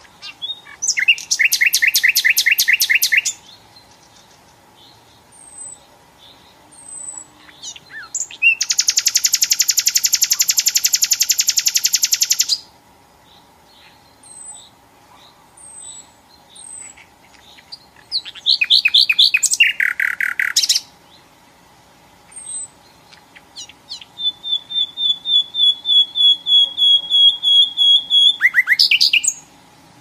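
Common nightingale singing in phrases: a rapid trill, a long fast rattle, a quick run of notes, and then a series of repeated whistled notes on one pitch that grows louder, ending in a short flourish. Soft high chirps fall between the phrases.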